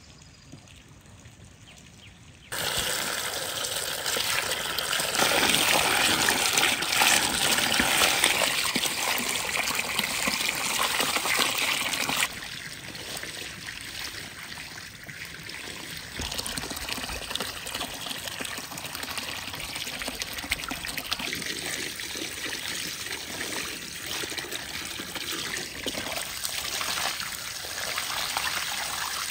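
Water pouring from a spout into a glass bowl of tomatoes and peppers and splashing over them as they are rinsed by hand. It starts suddenly about two and a half seconds in and is loudest at first, then drops abruptly a little before halfway to a steadier, quieter splashing.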